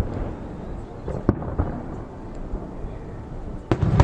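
Fireworks shells bursting, a low rolling rumble between the bangs, with a couple of sharp bangs near the middle and a cluster of louder bangs near the end.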